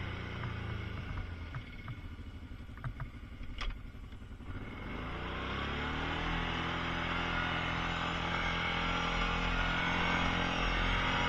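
Kawasaki Prairie ATV engine running at low speed with a few light knocks, then picking up speed about five seconds in and running steadily.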